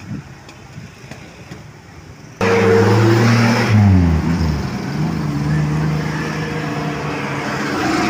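A faint low engine hum, then, about two and a half seconds in, a small off-road jeep's engine suddenly loud from close on board as it drives. Its pitch drops about a second later as it eases off, and then it runs steadily.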